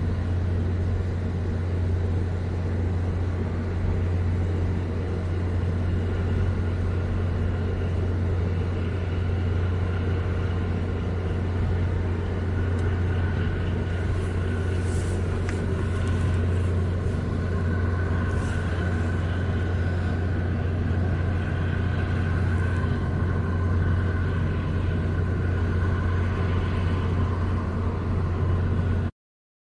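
A steady, unbroken low engine drone with a constant deep hum, cutting off abruptly just before the end.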